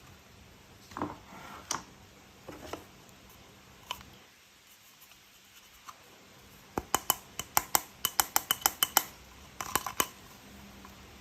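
Small hard plastic toy parts being handled: a few knocks and rustles, then a quick run of sharp clicks, about five a second, and a short cluster of clicks near the end.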